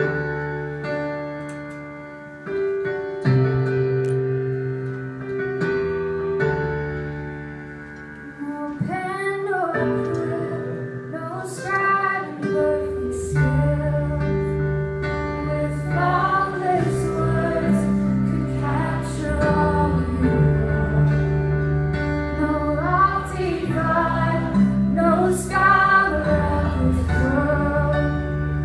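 Live worship band playing: held keyboard chords change every few seconds, then a woman starts singing about nine seconds in. Fuller low accompaniment joins a few seconds later, with short cymbal-like hits in the later part.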